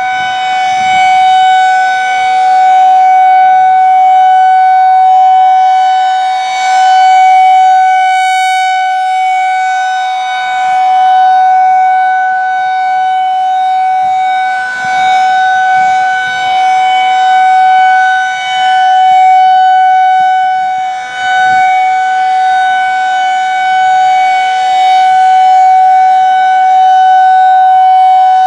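Federal Signal 2001-SRNB electromechanical outdoor warning siren sounding the Alert signal: one loud steady tone that holds its pitch, swelling and fading every few seconds as the rotating siren head sweeps past.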